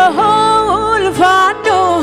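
A woman's voice singing a long, held 'oh' that dips in pitch a few times, over a steady instrumental accompaniment in a worship song.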